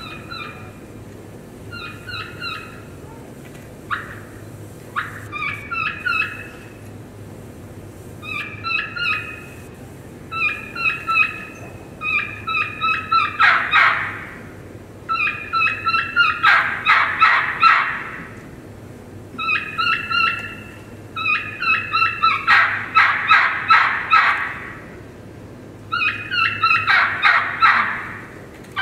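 A caller imitating a young wild turkey's kee-kee run on a turkey call. Groups of three or four high, thin whistled kee notes come with short pauses between them. From about halfway on, they run into louder, deeper yelping notes.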